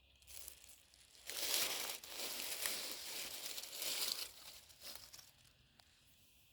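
A crinkling, rustling noise, loud for about three seconds from just over a second in, then fading away.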